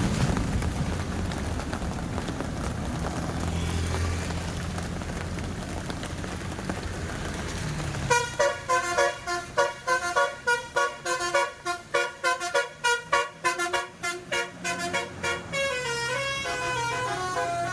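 Steady vehicle noise, then about eight seconds in a bus's telolet basuri multi-tone musical horn starts playing a fast tune. Its short notes pulse about three times a second and step up and down in pitch, and they run into longer notes near the end.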